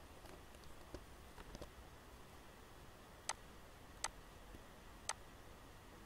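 Computer mouse clicking: three sharp single clicks spaced about a second apart in the second half, with a few fainter ticks earlier, over a faint steady background hiss.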